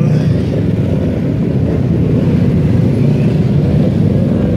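Several motorcycle engines running together as bikes pull away and pass close by one after another, a steady low engine noise.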